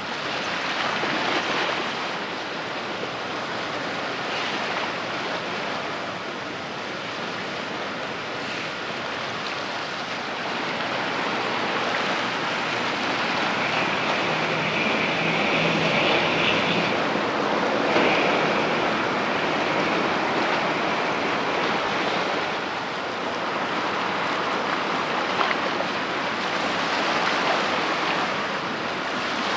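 Sea water washing and lapping, with wind: a steady rushing noise that swells and eases, louder for a few seconds about halfway through.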